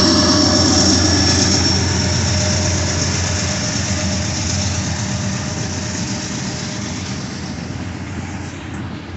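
Freight cars rolling past on steel wheels: a steady rumble with fast clattering over the rails that slowly grows quieter. A thin high whine fades out in the first couple of seconds.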